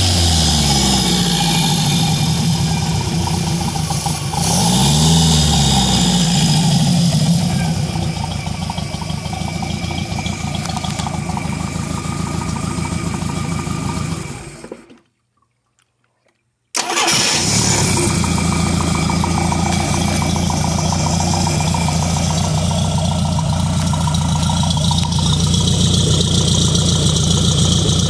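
Mercruiser 470 3.7-litre four-cylinder marine engine running on a stand. Its revs settle back toward idle at the start, rise and fall again in a brief throttle blip about four to six seconds in, then it idles steadily. A gap of silence of about two seconds comes around the middle, after which the same steady idle carries on to the end.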